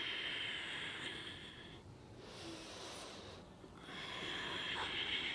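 A person breathing audibly in time with a yoga twist: two long breaths of about two seconds each, with a short pause between them.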